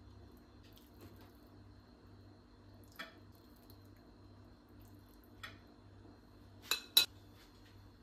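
A metal fork clinking against ceramic dishes while food is served onto a plate. There are light taps about three seconds and five and a half seconds in, then two sharper clinks close together near the end, the last the loudest, as the fork is set down on the plate.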